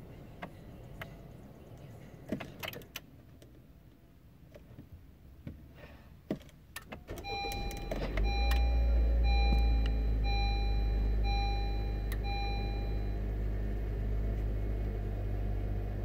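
Scattered light clicks and knocks inside a car, then about halfway through the car's engine starts and keeps running steadily. Over it, a dashboard warning chime beeps six times, about once a second.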